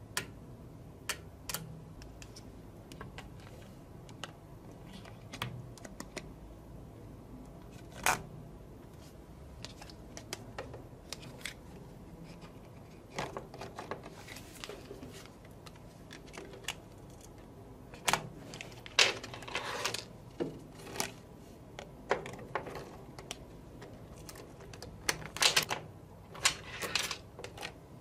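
Small magnetic balls clicking and snapping against one another as the ball layers are pressed and shaped by hand, in scattered sharp clicks that bunch into short rattling clusters in the second half.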